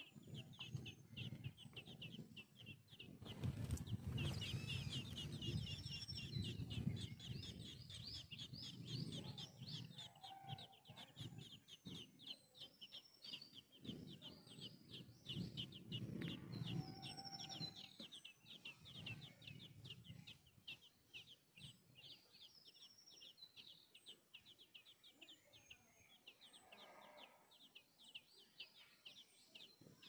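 Songbird nestlings begging in the nest: a rapid, unbroken series of short, high, thin calls, growing fainter in the last third. A low rumbling rustle runs under the calls for the first two-thirds.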